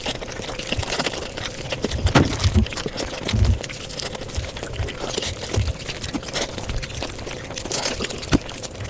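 Mukbang eating sounds played back sped up: a rapid stream of chewing, smacking and crunching clicks, with a few low thuds now and then.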